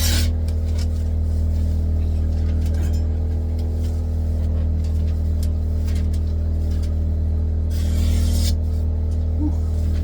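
Steady low machine hum throughout, with two short swishes, one at the start and one about eight seconds in, from a sharpened chef knife slicing thin magazine paper in a test cut.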